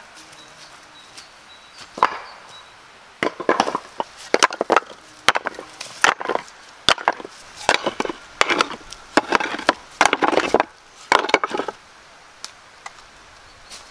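Masonry work: hard stone and tool knocks and scrapes, in quick irregular clusters, from flat stones and a trowel handled around a bucket of mortar.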